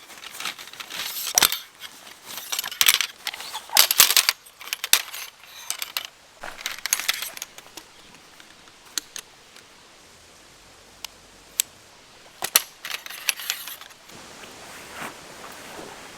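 Camping gear being handled: a quick run of small metallic clinks, clicks and rattles, thinning to a few separate clicks in the second half.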